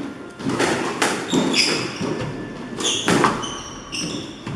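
Squash ball struck and hitting the court walls, a few sharp knocks, with court shoes squeaking briefly on the wooden floor between them.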